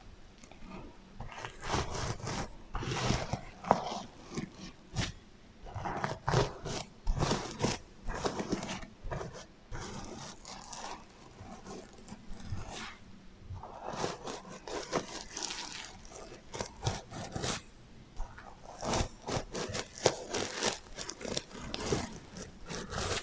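Sequins on a sequin heart pillow scratched and brushed by hand, giving irregular scraping and rustling strokes with an echo effect added.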